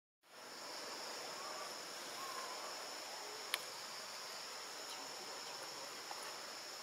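Steady, high-pitched chorus of insects droning without a break, with a single sharp click about halfway through.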